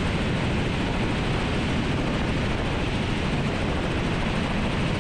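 Steady helicopter cabin noise in flight: the engine and main rotor running evenly, with no change in pitch or level.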